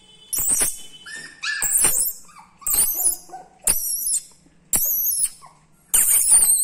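Pomeranian puppy yapping: six short, very high-pitched yips, about one a second.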